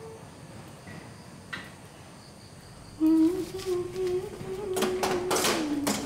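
A woman humming a slow tune that breaks off for a couple of seconds, then resumes about three seconds in. Sharp clinks and clatter of kitchen utensils and pots join it over the last seconds.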